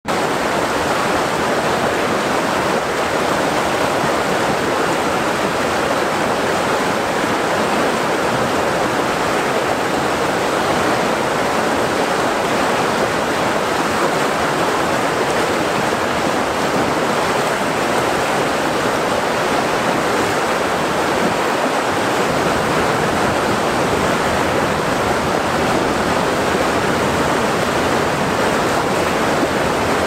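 Small waterfall, white water rushing over and between boulders in a steady, even roar with no breaks.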